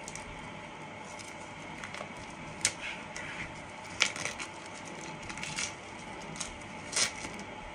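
Clear plastic wrapping crinkling and crackling in short sharp bursts every second or so as fingers pick and peel it off a bath bomb.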